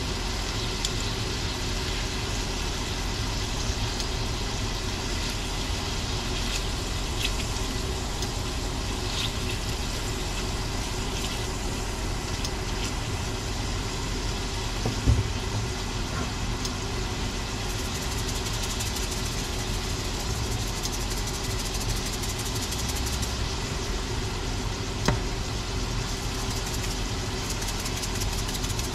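Shrimp sizzling steadily in butter in a stainless steel frying pan over a constant mechanical hum, with a sharp clunk about halfway through and a lighter one later.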